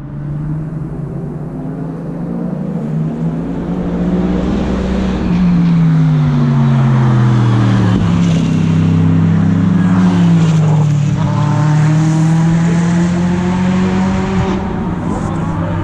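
GT3 race cars driving past at speed, several engine notes overlapping. The pitch falls through the middle, then climbs again in the last few seconds.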